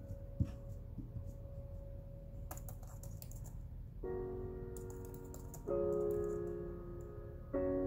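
Typing on a computer keyboard, in short bursts of key clicks. Slow piano chords come in about four seconds in and strike twice more.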